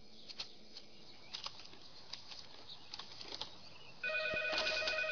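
Quiet room tone for about four seconds, then a telephone starts ringing with a steady electronic ring.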